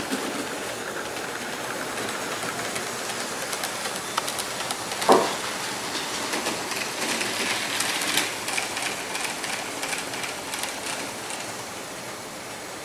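Model train wagons rolling along the layout track, with light clicking from the wheels over the rails, thickest in the second half, over a steady hiss. One short, louder tone sounds about five seconds in.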